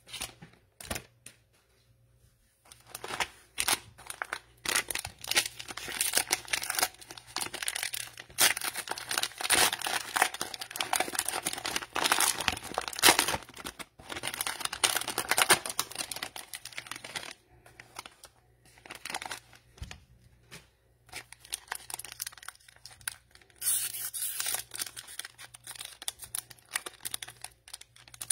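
Plastic wrapper of a Donruss Optic basketball cello pack being torn open and crinkled. It makes a dense crackle that starts about two and a half seconds in, thins out for a few seconds past the middle, then picks up again.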